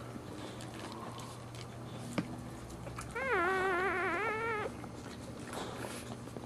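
Newborn boxer puppy giving one wavering, high-pitched cry, about a second and a half long, starting about three seconds in.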